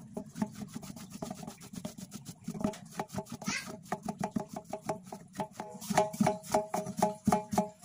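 Quick rubbing strokes on the rubber inside a tyre, cleaning away the residue left from scraping off old glue before a patch is fitted. The strokes grow quicker and louder about six seconds in, coming about six a second.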